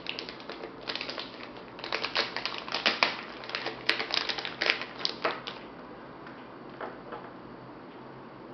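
An LED USB charging cable being handled by hand, making rapid, irregular crinkles and clicks for about five and a half seconds, then only a faint steady hiss.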